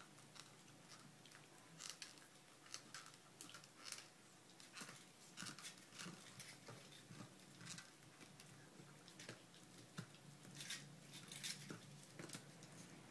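Small dog gnawing and mouthing a chew bone: faint, irregular clicks and scrapes of teeth on the bone, with a few sharper clicks standing out.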